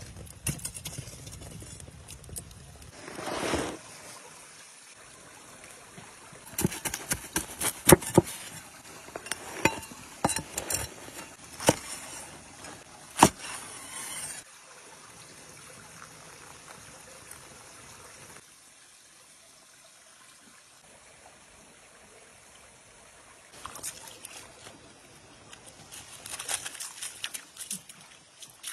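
Shallow forest stream trickling throughout. In the middle there is a dense run of sharp crunches and knocks, a knife cutting through crisp pizza crust on a wooden board. Near the end come lighter scuffs and taps of a dog's paws on wet gravel.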